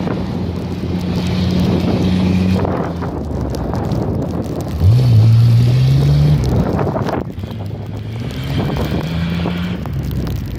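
A vehicle engine revs as it drives out of a snow-filled driveway. Its pitch jumps up sharply about five seconds in, holds for a second and a half as the loudest part, then drops back before rising again near the end, with wind noise on the microphone.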